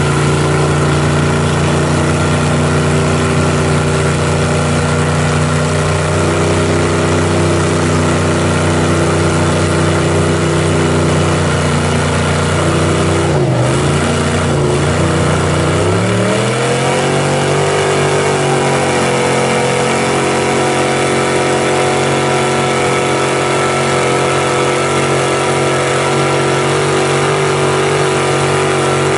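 Mega mud truck's engine running loud at steady revs under load as it churns its big tractor tyres through deep mud. About halfway through, the revs dip briefly, then climb back up and hold steady again.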